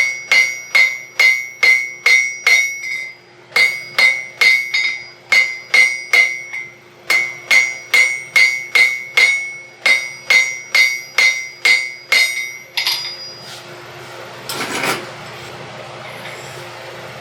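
Blacksmith's hammer striking hot iron on an anvil at about two and a half blows a second, each blow ringing, in three runs with short pauses between, while forging a curly-cue scroll on the end of a hook. About 13 seconds in the hammering stops, leaving a steady rushing noise with a brief louder surge.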